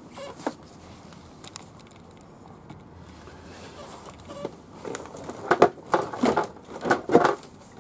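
Plastic bag and newspaper crinkling as they are handled, a short click about half a second in, then several loud crackling bursts in the last three seconds.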